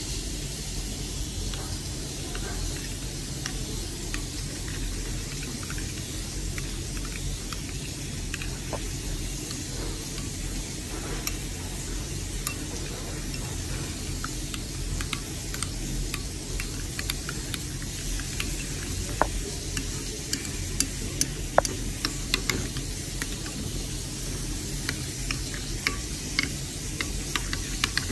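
A metal spoon stirring a thick sauce of mayonnaise, ketchup and mustard in a ceramic plate, with sharp clinks and scrapes of the spoon against the plate that come more often and louder in the second half. A steady sizzling hiss runs underneath.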